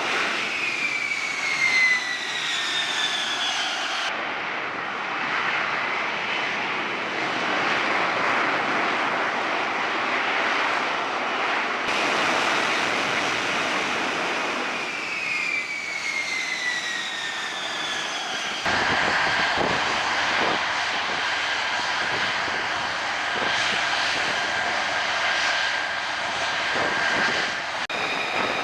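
F-35B Lightning II jet engine noise: a loud, dense rush with a high whine that falls in pitch twice, once near the start and again about halfway. The sound changes abruptly several times.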